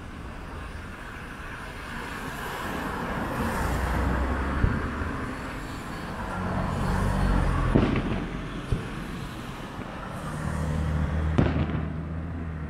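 Distant aerial firework shells bursting: about four sharp bangs a few seconds apart. Behind them, road traffic rises and falls as vehicles pass.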